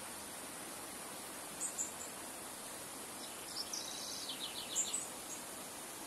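Shallow river running over stones, a steady rush of water. A small songbird sings above it: two short high notes about a second and a half in, then a longer phrase from about three seconds in that ends in a quick run of five notes.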